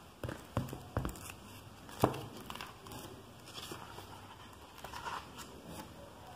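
A thick, heavy hardcover book being handled and its pages leafed through: a few sharp knocks in the first two seconds, the loudest about two seconds in, then soft paper rustling.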